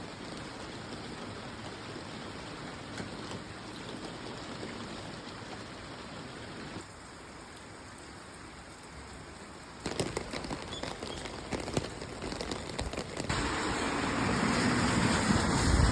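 Rain falling steadily, heard as a few separate recordings joined together. In the middle stretch, sharp individual drop ticks stand out on top of the rain, and in the last few seconds the rain grows louder.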